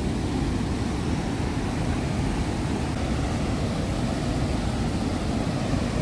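Wide, low river waterfall rushing steadily over its rock ledge: a constant rushing noise, heaviest in the low end, that does not change.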